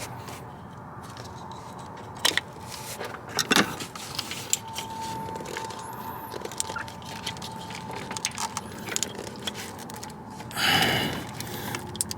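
Metal parts and tools clicking, knocking and scraping as the upstream air-fuel sensor's wiring and clips are worked loose from their mounts, with a faint steady tone for a few seconds in the middle and a short rushing noise near the end.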